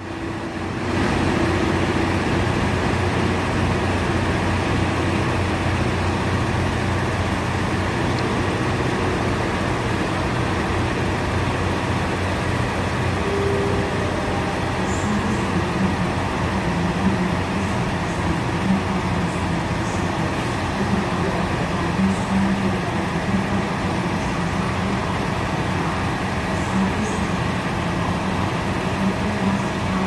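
Ex-JR Hokkaido Kiha 183 diesel railcar train pulling away from the platform, its diesel engines giving a steady rumble; a wavering low hum comes in about halfway.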